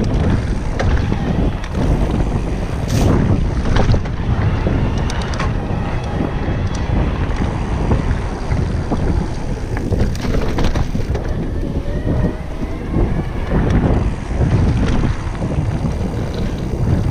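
Wind buffeting the action camera's microphone over the rumble of a mountain bike's tyres on a dry dirt trail, with scattered rattles and knocks from the bike over bumps.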